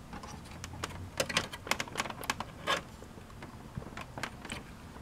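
Irregular clicks and light knocks of fingers pressing on and handling the plastic and metal parts inside a desktop computer case, checking that the cards are seated. A burst of about a dozen sharp clicks comes in the middle, with a short scrape, and a few more follow near the end.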